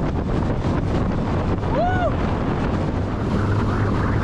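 Yamaha outboard motor driving a small aluminium tinny at speed, running steadily with wind on the microphone and water rushing past the hull. A short rising-and-falling tone sounds about two seconds in.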